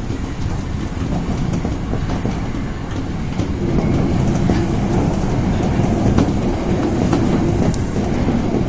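Osaka Municipal Subway 22 series train running, heard from the cab: a steady rumble of wheels on rail with scattered clicks from the track. It grows somewhat louder about three and a half seconds in.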